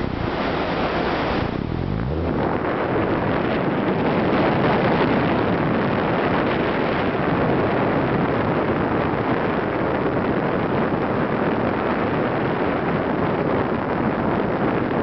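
Steady rush of air over the camera's microphone in paraglider flight, a loud even hiss, with low buffeting that dies away about two seconds in.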